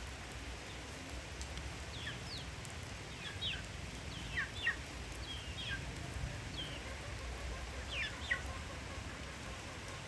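Chickens calling: short, high peeps that fall in pitch, scattered through, over a steady hiss of rain.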